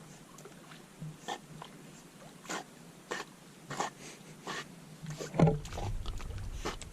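Dog swimming out after a thrown stick in the lake: a string of short splashing sounds, one or two a second. A little over five seconds in comes a louder knock followed by a low rumble.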